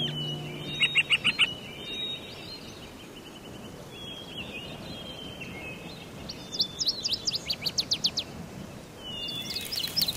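Small birds chirping in short, quick-repeated series over a steady outdoor background hiss.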